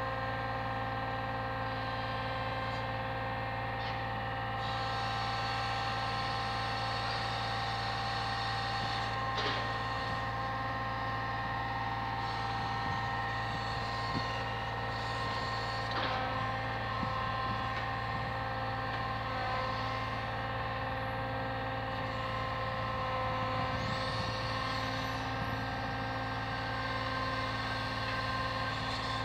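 Brick delivery lorry's diesel engine running steadily to power its truck-mounted crane, with steady whining tones over it and two short knocks about a third and halfway through.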